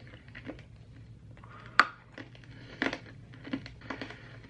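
Chewing a mouthful of Warheads extreme sour hard candies: scattered crunches and clicks from the candy, the loudest a sharp crack about two seconds in.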